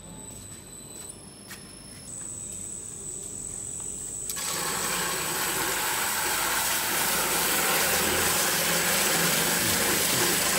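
High-speed dispersing mixer started from its control panel: a few short electronic beeps, then a thin steady high whine about two seconds in. About four seconds in, the electric motor and its disperser blade start churning liquid in a bucket, growing louder as the motor speeds up and then running steadily.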